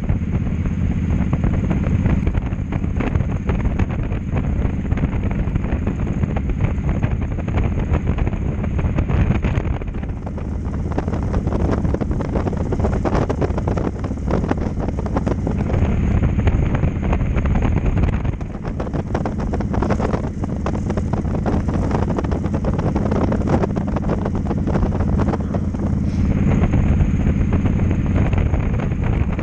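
Cruiser motorcycle engine running steadily at road speed, under heavy wind rush on the microphone.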